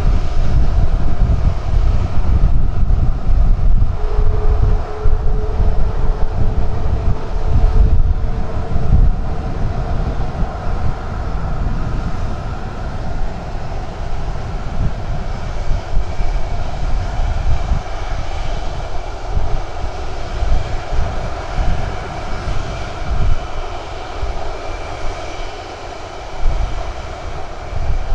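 Boeing KC-135R Stratotankers' CFM56 (F108) turbofan engines at taxi power: a steady jet whine over a low rumble. The rumble eases after the first ten seconds or so, while higher whine tones come in from about halfway through.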